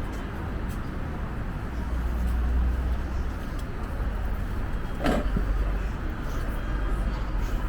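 City street traffic: a steady low rumble of passing cars and buses, with one brief sharp sound about five seconds in.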